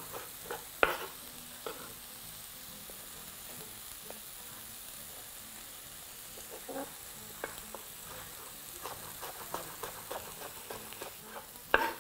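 Chef's knife cutting snow peas on a bamboo cutting board: a few separate cuts at first, a pause, then a quicker run of cuts, several a second, near the end. Under it, a steady faint sizzle of lamb frying in a pan over high heat.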